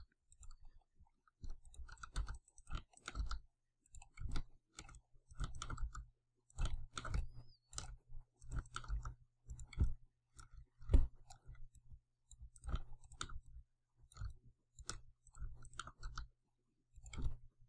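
Quiet, irregular clicking of a computer mouse and keyboard, single and double clicks about every second, with the loudest click about eleven seconds in.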